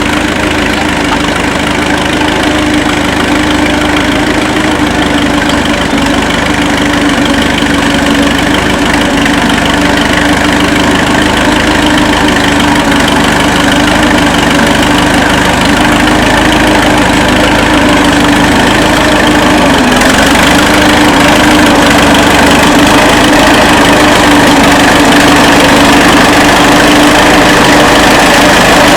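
1935 Fordson tractor's four-cylinder engine running steadily, its note dipping briefly about two-thirds of the way in, growing slowly louder throughout.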